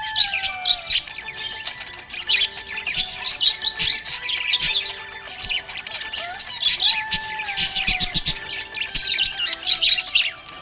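Several budgerigars chirping and chattering continuously, with many quick, high chirps and clicks packed closely together.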